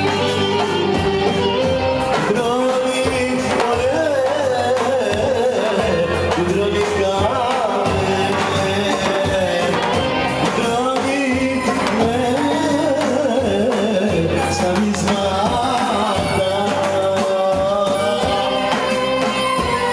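Greek band playing folk dance music with a singer, continuous throughout.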